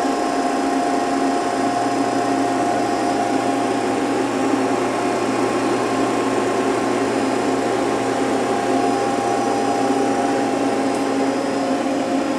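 Hydraulic unit of a 1996 Okuma LNC8 Cadet CNC lathe running: a steady, even machine hum made of several held tones, with a lower hum joining about a second and a half in. It runs smoothly and quietly, with no knocking or whine.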